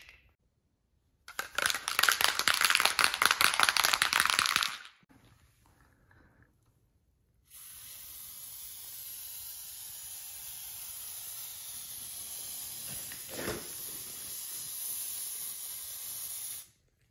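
Can of Gorilla heavy-duty spray adhesive spraying in a steady hiss for about nine seconds, cutting off abruptly just before the end. Earlier, a few seconds of loud crackly rustling.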